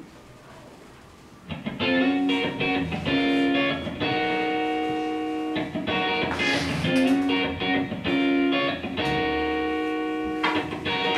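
Instrumental music intro with guitar, starting about a second and a half in after a quiet opening, playing long held notes.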